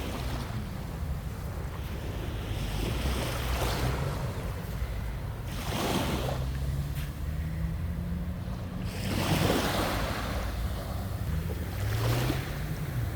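Mediterranean waves washing onto the beach, one surge about every three seconds, over a steady rumble of wind on the microphone.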